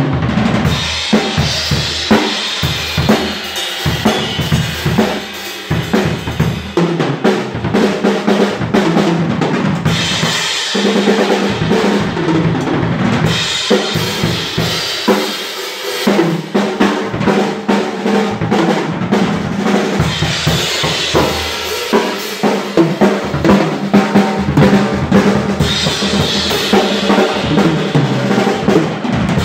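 Kyre Ares acoustic drum kit played without pause: bass drum, snare and toms in a steady groove with fills, and Nebulae cymbals crashing in several stretches.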